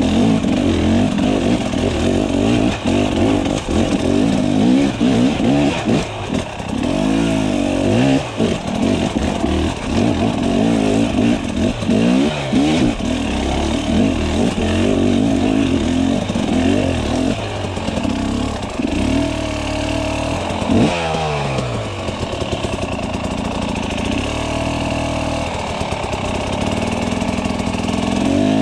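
Husqvarna TX300 two-stroke dirt bike engine, its revs rising and falling again and again as it is ridden up a rocky trail, with the throttle opened and closed in short bursts.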